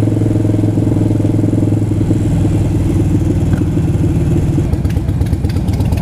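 Harley-Davidson V-twin engine running steadily while riding. About two seconds in it settles into an uneven, loping beat as the bike slows to a stop and idles.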